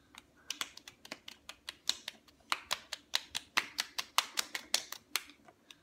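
Rapid slaps of open palms against both cheeks, about six or seven a second, starting about half a second in and stopping just before the end.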